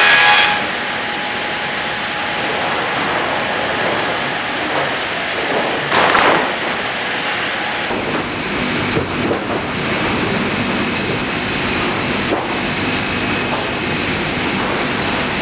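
MEBOR small-log sawing line running: a steady mechanical rumble and hiss from the conveyors and saws, with scattered knocks. A louder high whine dies away in the first half second, and a short louder burst comes about six seconds in.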